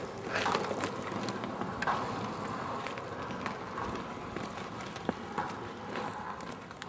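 Inline skate wheels rolling over rough asphalt: a steady grainy rumble with scattered clicks and scuffs.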